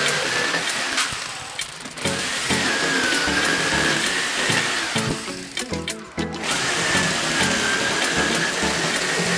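Handheld electric power tool running with a high, slightly wavering whine in three stretches, breaking off about a second in and again around five seconds in. Background music plays underneath.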